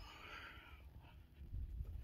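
A faint breath in the pause between sentences, dying away after about a second, over a steady low rumble.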